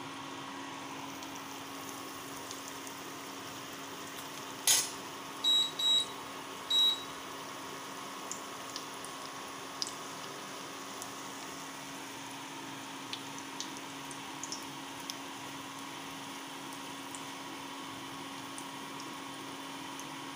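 Egg-and-potato kababs frying in hot oil: a steady sizzle with scattered small pops. About four and a half seconds in, a sharp click is followed by three short high-pitched beeps, the loudest sounds.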